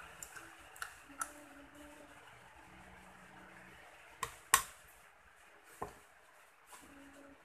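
Scattered sharp metal clinks and taps of hand tools and parts on the opened crankcase and clutch of a two-stroke Yamaha V80 engine being taken apart. A few light clicks come near the start, the loudest clink about four and a half seconds in, and another around six seconds, over a faint steady hiss.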